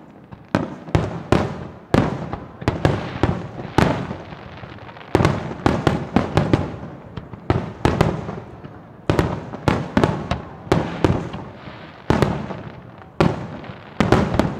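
Aerial firework shells bursting in quick succession, sharp bangs two or three a second, each trailing off in reverberation, with a short lull about four seconds in.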